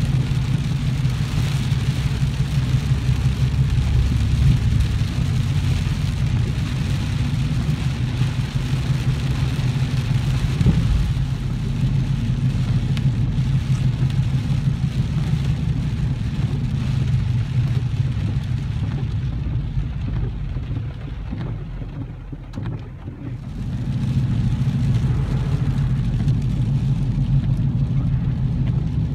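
Inside a moving car's cabin: a steady low engine-and-road drone with tyre hiss from the rain-soaked road. About twenty seconds in, the hiss fades and the drone quietens for a few seconds, then both pick up again.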